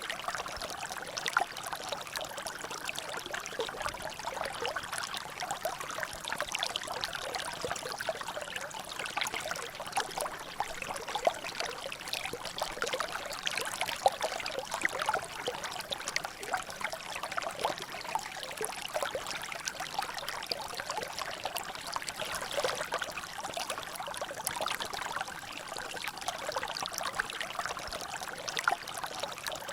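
Water trickling and dripping in a natural drainage: a steady splashing of many small drops, with a few louder single drips now and then.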